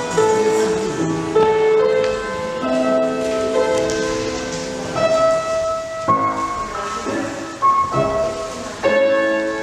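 Piano music: a melody of held notes, changing about once a second.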